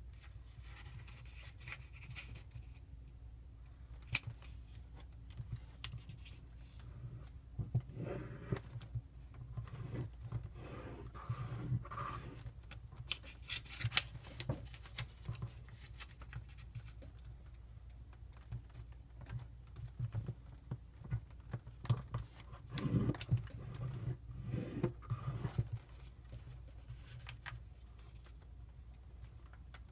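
A small square sheet of origami paper being folded and creased by hand: crinkling rustles and sharp crackles as creases are pressed in, coming in irregular bursts with louder clusters about a third of the way in and again past the middle.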